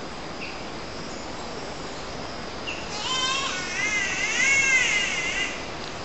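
Green catbird giving its wailing, cat-like call about halfway through: a wavering note that rises and falls in pitch for about two and a half seconds. A steady high insect hum runs behind it.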